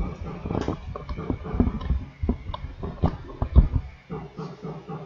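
Irregular knocks, clicks and rustles of someone moving about and handling things near the microphone, with a heavier thump about three and a half seconds in.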